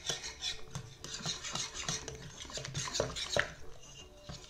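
Danish dough whisk stirring flour into a wet mixture in a glass bowl: repeated scraping strokes of the metal coil through the flour and against the glass, with a sharper clink about three and a half seconds in.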